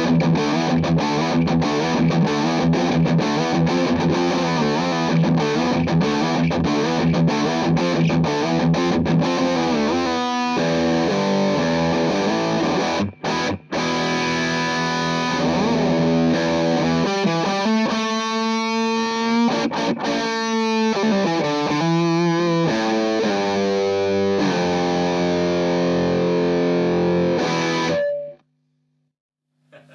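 Distorted electric guitar: a Fender Telecaster Deluxe through a JHS Angry Charlie distortion pedal, with its gain turned up for a chunky metal tone, into an Orange Rockerverb 100 head and an open-back 2x12 cab. Fast chugging riffs run for about the first ten seconds, followed by held chords and bent, wavering notes, and the playing stops suddenly near the end.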